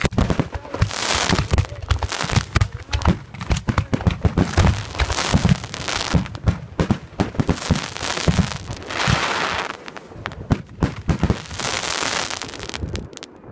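Zambelli professional aerial fireworks display: shell bursts booming in rapid succession, with stretches of dense crackling from crackle stars, stopping abruptly just before the end.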